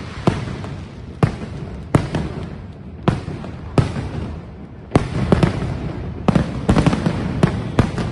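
Aerial fireworks bursting overhead: about a dozen sharp bangs at irregular intervals, coming faster and sometimes in quick pairs in the second half, over a steady rumble of distant explosions.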